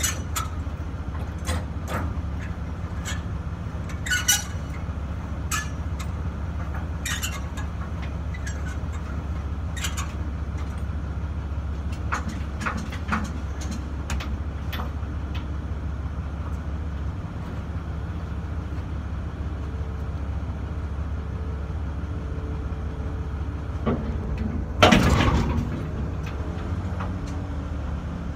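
Pickup truck engine idling with a steady low hum, with scattered sharp clicks and knocks through the first half and one louder noisy burst, lasting about a second, about 25 seconds in.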